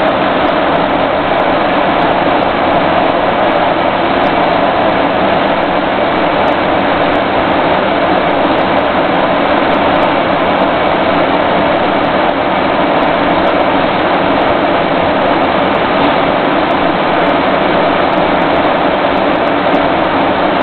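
Steady, loud engine and road noise inside the cab of an armored military vehicle driving on a dirt road.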